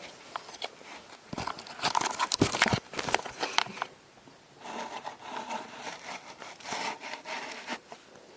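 Close handling noises: scattered sharp clicks and scraping in the first half, then a softer stretch of rubbing and crinkling.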